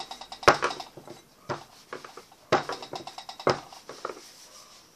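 Rolling pin working bizcocho dough on a wooden table, with four sharp knocks about once a second as it strikes the tabletop at each stroke and lighter taps between them.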